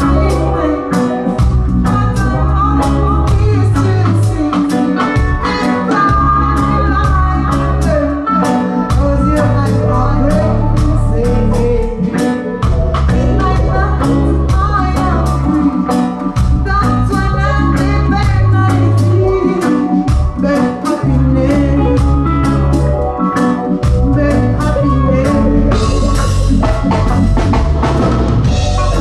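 Live reggae band playing: a deep bass line in repeating phrases, drum kit and electric guitar, with a woman singing into a microphone.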